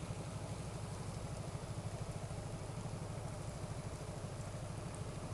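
Honda CB150R's single-cylinder engine idling with a fast, even putter, the bike standing still in traffic.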